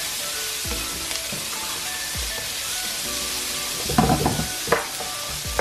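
Chopped onions and whole spices frying in hot oil in a non-stick wok, a steady sizzle, with a spatula stirring and scraping through them. A brief louder pitched sound breaks in about four seconds in.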